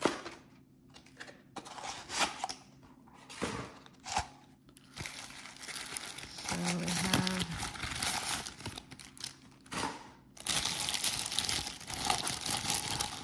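Crumpled packing paper crinkling and tearing as it is pulled off by hand, in short bursts at first and then more continuously. Near the end a thin plastic bag rustles.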